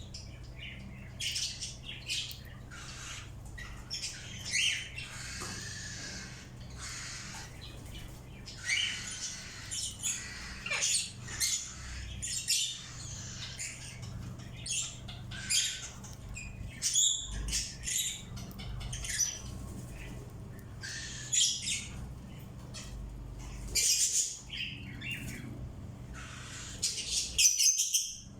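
Birds squawking and chirping in many short, sharp calls that come irregularly, often in quick runs, over a faint steady low hum.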